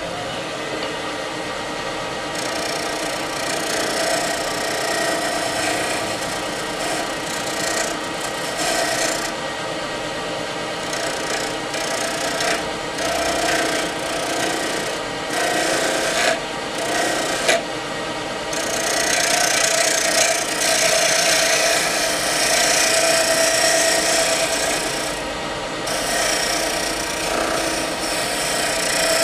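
Wood lathe running with a spindle gouge cutting the spinning ambrosia maple ring blank: a steady scraping of wood being turned down over the motor's hum, dropping out briefly several times as the tool comes off the wood.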